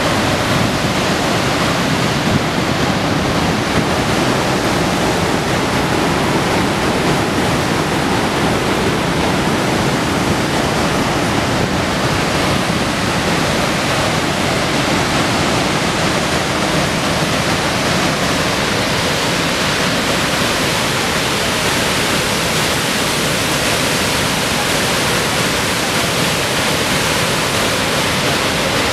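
Niagara Falls: the water of the falls and the churning river below making a dense, steady rushing noise without a break.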